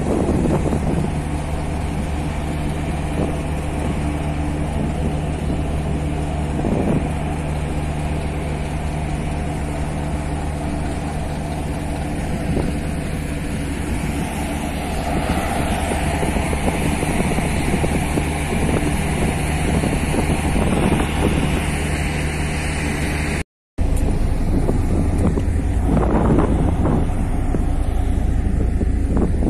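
Steady low drone of a car ferry's diesel engines, heard on the open upper deck. Wind buffets the microphone, more strongly after a brief cut about three quarters of the way through.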